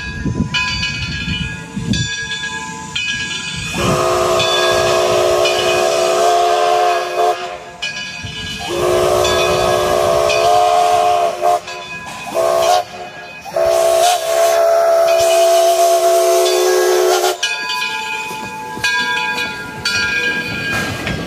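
Steam locomotive Edison No. 1 blowing its chime steam whistle in four blasts: long, long, short, long, the standard signal for a grade crossing.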